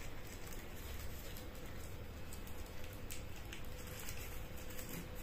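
Faint rustling and a few small clicks of hands handling a plastic remote control and its batteries.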